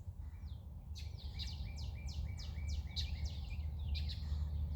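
A songbird singing a run of about ten quick notes that each fall in pitch, about four a second, starting about a second in, with more bird chirps near the end. Under it runs a steady low rumble.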